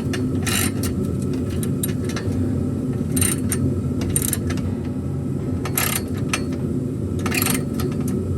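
Short bursts of wrench clicking and scraping, about five in all and a second or so apart, as a wrench works the exhaust header bolts on a small-block Mopar, over a steady low hum.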